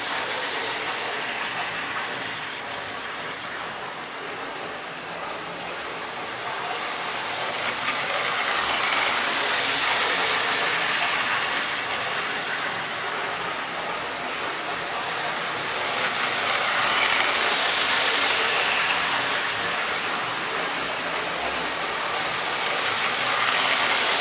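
A model Class 66 diesel locomotive hauling a rake of model coal wagons round a circular layout of loosely laid track. Its wheels rattle and whir on the rails, growing louder each time the train passes close, about every seven or eight seconds.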